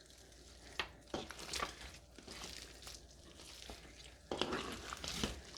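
Hands kneading and squishing a large mixed mass of slime with beads in it: irregular wet squelches and crackles, with a louder, longer squelching stretch about four seconds in.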